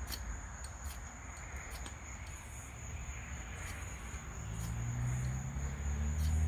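Steady high-pitched insect chirring, broken by a few short sharp scrapes or clicks. A low hum rises over the last couple of seconds.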